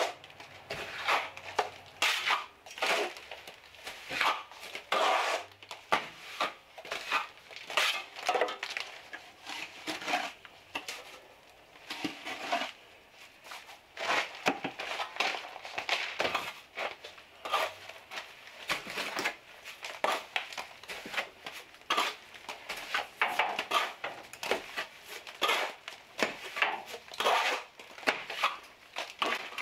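Steel plastering trowel scraping and clinking in irregular strokes as fibered cement stucco is scooped up and pressed onto metal lath.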